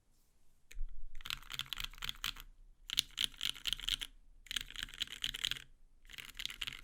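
Fast typing on a mechanical Alice-layout keyboard with lubed, filmed NovelKey Cream linear switches in an acrylic plate and case, under GMK keycaps. After a nearly quiet first second with a couple of stray clicks, the keystrokes come in four quick bursts of about a second each, with short pauses between.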